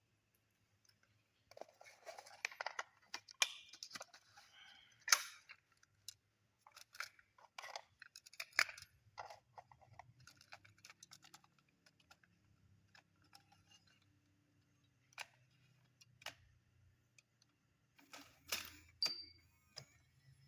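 Irregular small clicks, taps and short scrapes of hands handling the plastic and metal parts of a car stereo head unit during a repair, over a faint low hum.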